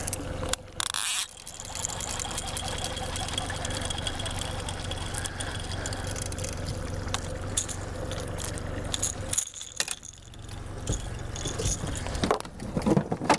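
Outboard motor idling with a steady low hum while a fishing reel is cranked in, playing a hooked snook to the boat, with light rattling and clicking of tackle. A short rush of noise comes about a second in.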